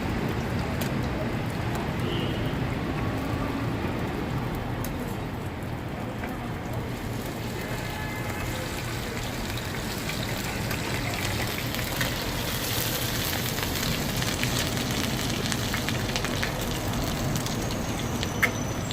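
Oil sizzling steadily on a street-stall griddle as hotteok fry, with a sharp tap near the end.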